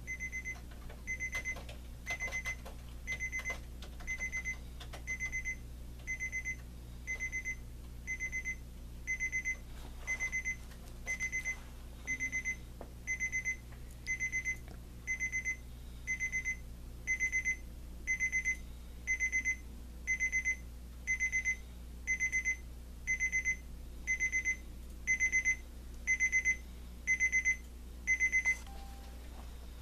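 Homedics Sound Spa Premier clock radio's beep-tone alarm going off: a short electronic beep about once a second that grows louder as it goes, the alarm's graduated wake-up tone. It stops near the end.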